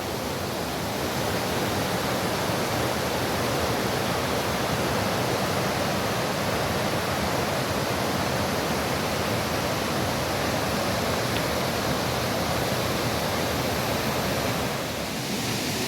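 Agnes Falls waterfall: a steady, even rush of falling water that dips slightly and changes character near the end.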